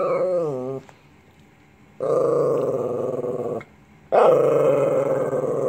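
A Lhasa Apso "talking": one drawn-out vocal sound that wobbles and falls in pitch and ends under a second in, then two longer, steadier ones of about a second and a half and two seconds.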